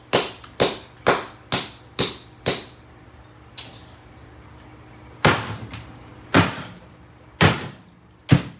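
Repeated sharp strikes on a Kenmore mini fridge as it is smashed apart, each blow ringing briefly. There are six quick blows about two a second, a pause, then four more about a second apart.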